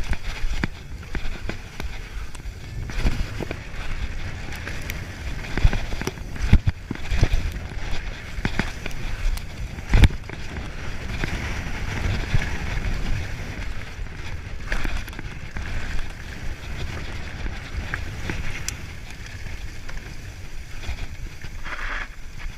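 Mountain bike descending a rough dirt downhill trail: tyres hissing on the ground and the bike rattling and knocking over bumps, under a constant low rumble of wind on the microphone. One hard knock about ten seconds in is the loudest.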